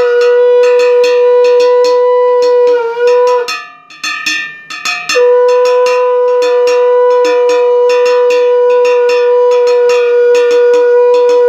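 A hand bell is rung rapidly, about five strikes a second, while a conch shell is blown over it in long steady blasts. The first blast wavers and stops about three and a half seconds in. After a short gap a second blast of about six seconds sounds until near the end.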